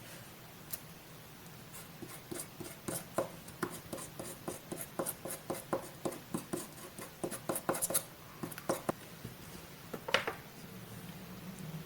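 Scissors snipping paper: a quick run of small, crisp cuts, several a second, followed by one louder paper scrape or rustle near the end.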